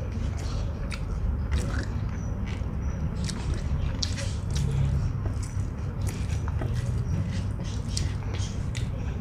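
Close-up eating sounds of rice and omelette curry eaten by hand: wet chewing with many small mouth clicks and smacks, over a steady low hum.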